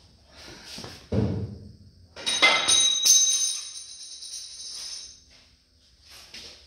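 Soft handling thuds as the front wheel of the chassis is turned by hand, then a sudden metallic clank about two seconds in and another a moment later. A high, jingling metallic ring follows and fades out over about three seconds.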